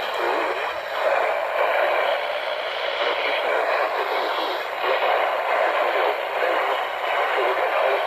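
Radio broadcast audio: a steady, muffled rush of noise that swells and dips, with no clear words.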